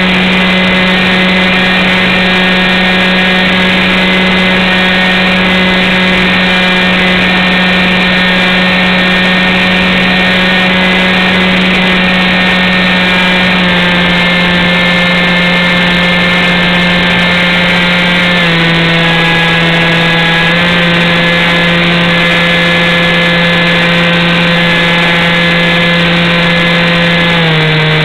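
Model airplane's motor and propeller running steadily at cruise, loud and close as picked up by the onboard camera, with a steady hum. Its pitch steps down slightly about halfway through, drops again a few seconds later, and drops once more near the end.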